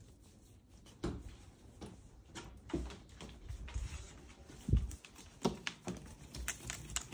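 Irregular soft knocks and low thumps of hands rolling and pressing balls of dough on a floured wooden board.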